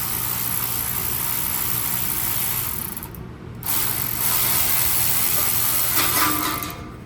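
A handheld power tool running in two long stretches of about three to four seconds each, with a short pause between, while the exhaust is being unbolted.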